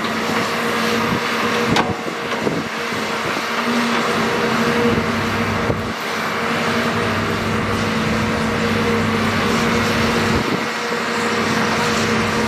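Large crawler excavator's diesel engine running steadily under working load, with a constant hum, and a sharp knock about two seconds in.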